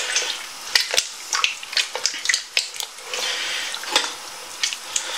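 Spoon stirring a thick bean stew in a large stainless steel stockpot, with irregular knocks and clicks against the pot's sides and bottom and a longer scrape about three seconds in.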